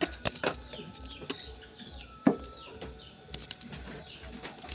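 Birds calling faintly, with scattered clicks and one louder thump about two seconds in.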